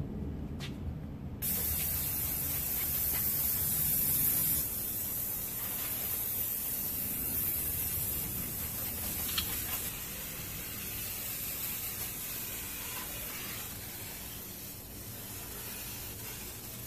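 Aerosol can of engine degreaser spraying over an engine bay in a long hiss. It starts after a few faint clicks about a second and a half in, is loudest for the first three seconds, then carries on more quietly.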